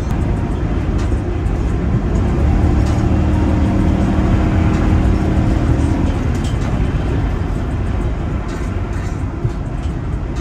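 Steady low road and engine rumble of a car driving at highway speed, heard inside the cabin.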